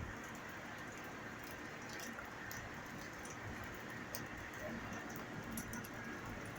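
Rain pattering, with scattered drops ticking over a steady hiss.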